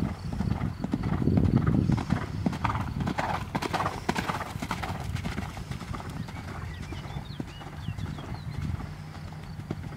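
Hoofbeats of a horse cantering on a sand arena, dull rhythmic thuds that are loudest in the first two seconds and then grow fainter as the horse moves away.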